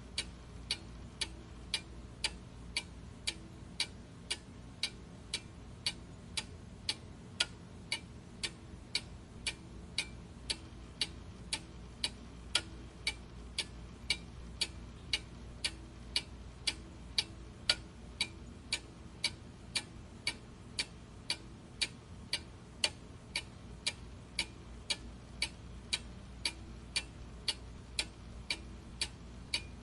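Clock ticking steadily, with evenly spaced sharp ticks a little faster than one a second.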